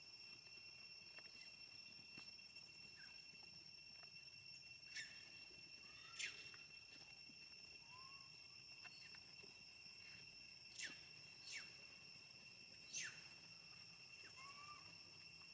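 Faint steady high insect drone, with five short, sharp downward-sweeping animal calls and a few soft chirps in between.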